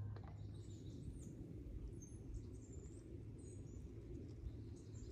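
Outdoor ambience: a steady low rumble with faint, short, high bird chirps scattered through it.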